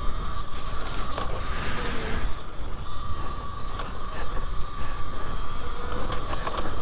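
Talaria Sting R MX4 electric dirt bike riding a rough trail: a steady high motor whine over a low wind rumble on the microphone, with scattered knocks and rattles from the bike.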